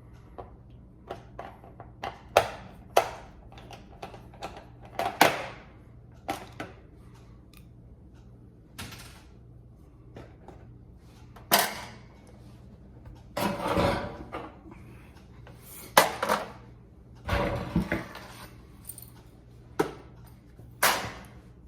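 Clicks, knocks and short rattles of metal parts as an electric range's burner infinite switch is worked loose and taken out of the control panel, with a few louder clunks scattered through.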